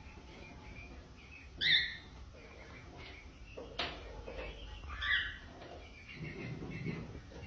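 Birds chirping in short separate calls, the loudest about two seconds in and another about five seconds in, with a sharp click around the middle.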